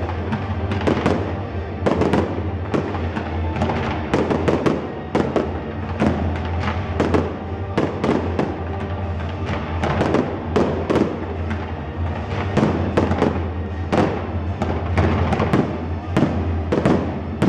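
Aerial fireworks shells bursting in quick succession, two or three bangs a second, overlapping in a continuous barrage.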